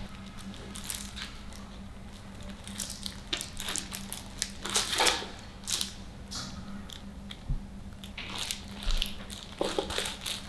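Sticker sheet crinkling and rustling in short, irregular bursts as a kitten paws and bites at it, over a faint steady hum.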